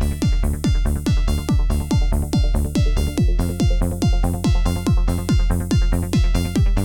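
Electronic dance music with a steady kick-drum beat of about two strikes a second and sustained synth chords.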